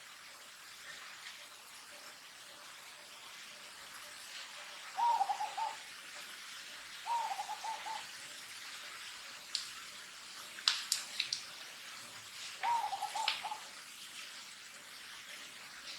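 A bird calling three times, each a short warbling note about a second long, with a few sharp clicks in between.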